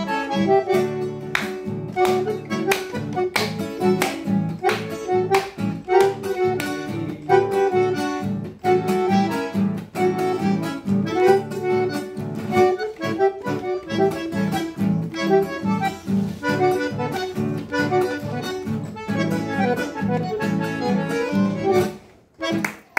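Bandoneon and acoustic guitar playing a tune together, the bandoneon carrying the melody over guitar chords strummed in a regular beat. The music breaks off near the end.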